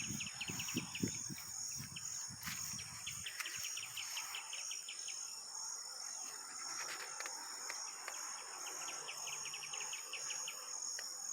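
Insects chirring steadily at a high pitch, with repeated short bursts of rapid cricket-like trilling and some low pulses in the first three seconds.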